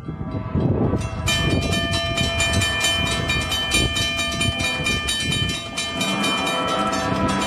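Amtrak SC-44 Charger diesel locomotive's horn sounding one long, steady chord that starts about a second in and holds, over a low rumble, as the passenger train approaches.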